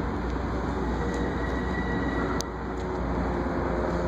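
Long Island Rail Road passenger train at a station platform: a steady rumble with a thin, steady high whine over it, and one brief click a little past the middle.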